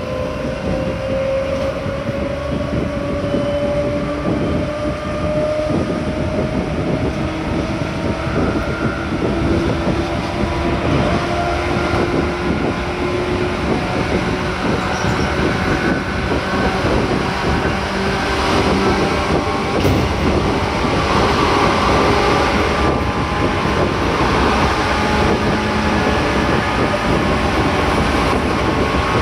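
Seibu 2000 series electric commuter train (set 2047F) running, heard from inside the car. The motor and gear whine rises slowly in pitch over the first several seconds as the train gathers speed, then holds steady over a continuous rumble of wheels on rail.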